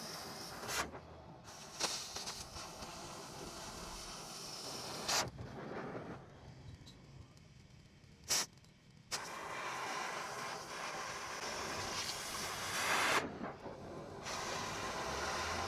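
Oxy-fuel cutting torch hissing as it cuts a cope into steel pipe, with a few sharp pops and a couple of short breaks where the hiss drops away.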